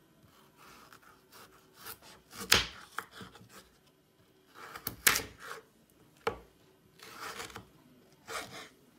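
Kitchen knife cutting a peeled raw potato on a wooden cutting board: several sharp knocks of the blade hitting the board, the loudest about two and a half and five seconds in, with softer scraping between them.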